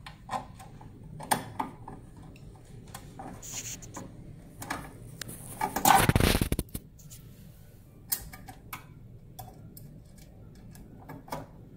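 Small clicks and taps of a hand screwdriver turning screws into the analyzer's sheet-metal chassis, scattered irregularly, with one louder rubbing burst lasting under a second about six seconds in.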